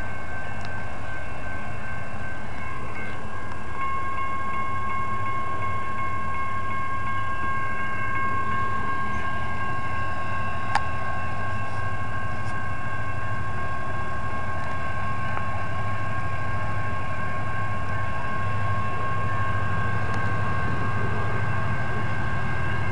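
Railroad crossing bells ringing steadily as a freight train rolls through the crossing with a low, even rumble. A single sharp click sounds about eleven seconds in.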